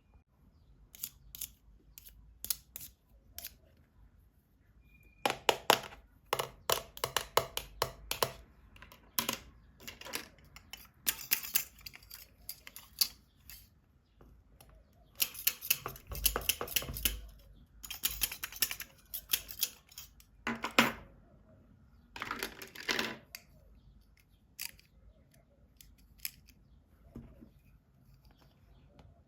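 Plastic toys and their packaging handled close to the microphone: clusters of sharp clicks, snaps and rustles in bursts, with quiet gaps between.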